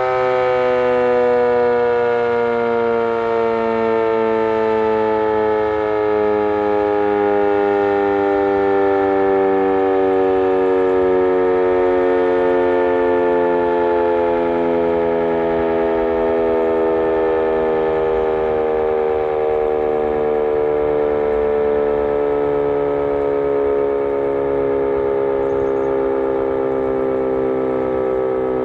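Sentry 20V2T dual-tone electromechanical siren sounding a loud, steady chord whose pitch slides slowly and evenly lower throughout.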